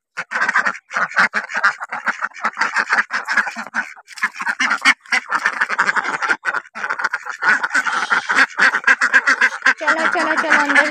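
A flock of domestic ducks, mallard-type drakes and hens with white ducks, quacking at once in a constant overlapping chatter.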